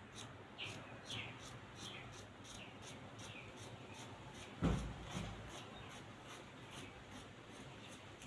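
Quiet handling of cut fabric on a tabletop, with one dull thump about halfway through. A small bird chirps repeatedly over the first few seconds, short falling chirps about twice a second.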